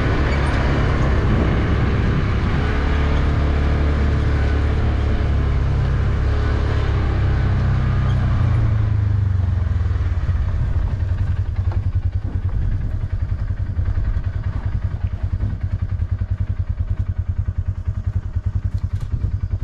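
A vehicle engine running, louder and fuller for about the first ten seconds, then settling into an idle with a fast, even beat.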